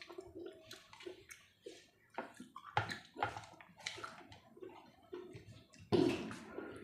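Close-up eating sounds: chewing with irregular short clicks and smacks of the mouth, louder near the end.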